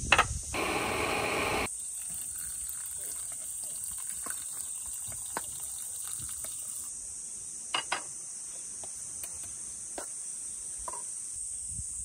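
Insects chirring in a steady high, even tone. At the very start a metal gas canister is set down on a wooden slat table with two sharp knocks, followed by a brief rush of noise. Scattered light clicks and taps of cooking gear are heard later on.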